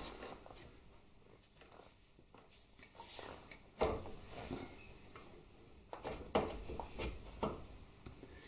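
Metal motorcycle parts being handled and shifted by hand: a swing arm being worked into line with the frame bracket. Scattered knocks and clicks with faint rustling, a sharp knock about four seconds in and several more between six and seven and a half seconds.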